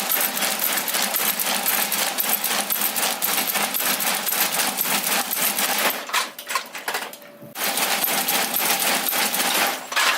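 Broom sewing machine clattering rapidly as it stitches through the bundled broomcorn head of a broom. It stops for about a second and a half past the middle, runs again, then stops near the end.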